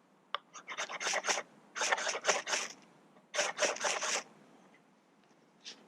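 Ferro rod being struck with a scraper, three quick runs of rasping scrapes, to throw sparks onto tinder and light it.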